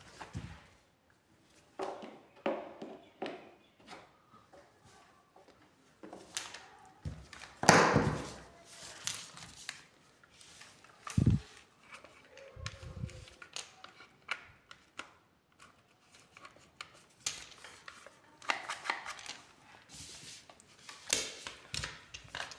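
Plastic pressure-washer parts and high-pressure hose being handled: scattered clicks, knocks and rustles, with a louder knock about eight seconds in.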